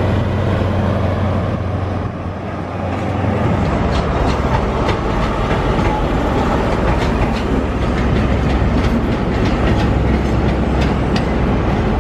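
LNER InterCity 125 passing, its Class 43 diesel power car running with a steady low hum. From about four seconds in, a run of sharp wheel clicks over rail joints as the train rolls by.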